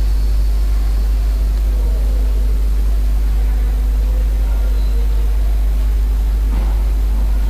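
Steady low-pitched hum with a fainter steady tone above it, unchanging throughout.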